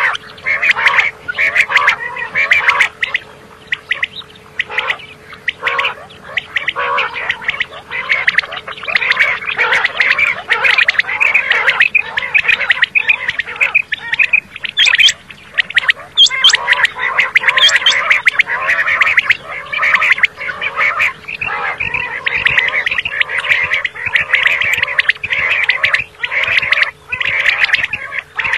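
Common quail calling: a dense, unbroken run of rapid, chattering call notes.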